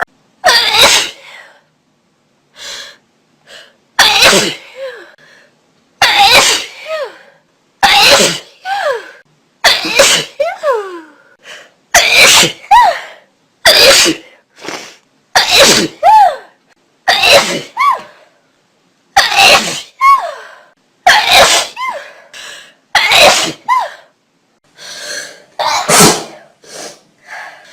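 A person sneezing over and over in a long fit: more than a dozen loud, sudden sneezes about every one and a half to two seconds, many ending in a short falling voiced tail.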